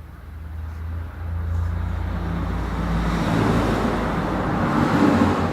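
A motor vehicle's engine rumble with road noise, growing steadily louder and peaking near the end.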